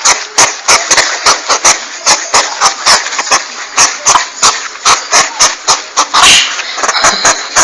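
Porcupine calling: a rapid, irregular run of short, raspy, hissing grunts, about four to five a second.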